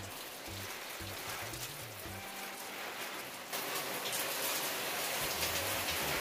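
Handheld shower head spraying water onto a houseplant's leaves, a steady rain-like hiss that gets louder about halfway through.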